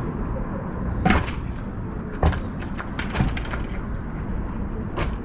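A crow drinking at a water dish: about five short, sharp knocks and clicks, spread unevenly over a few seconds, over a steady low rumble.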